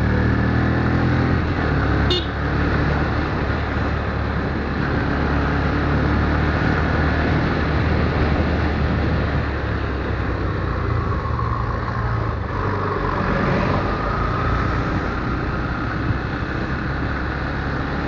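Motorcycle engine running steadily as the bike is ridden, its pitch shifting a little as the throttle changes, with a brief sharp high-pitched squeak about two seconds in.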